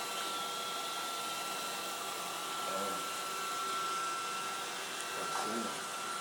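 Roomba robot vacuum running: the steady whir of its suction fan and brush motors, with a thin high whine held at one pitch.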